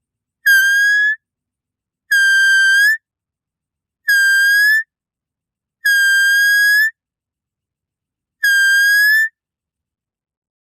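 Doe (female deer) bleating: five high calls, each about a second long and rising slightly at the end, spaced about two seconds apart.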